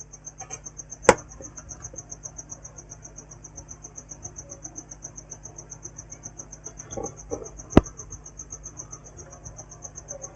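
A cricket's high-pitched trill, pulsing steadily about six times a second, with two sharp clicks, one about a second in and one near the end.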